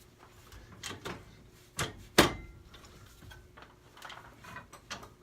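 Metal knocks and clanks of garage door torsion-spring hardware being worked along the shaft: a few light knocks, then two sharp clanks about two seconds in, the second ringing briefly. The part will not slide free because the other side is still tight.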